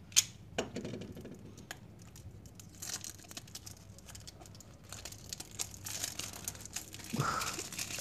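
A sharp click just after the start and a couple of lighter clicks, then clear plastic wrapping crinkling and rustling as it is peeled off a small cardboard toy box and crumpled in the hand, getting busier toward the end.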